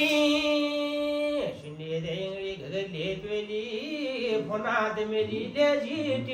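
A singer chanting unaccompanied in a Kumaoni jagar: one long held note, then a wavering, gliding sung line with the drums silent.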